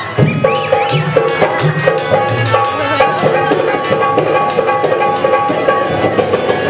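Rajasthani folk music: a harmonium holding steady notes, changing about every half second, over a hand drum beating a rhythm.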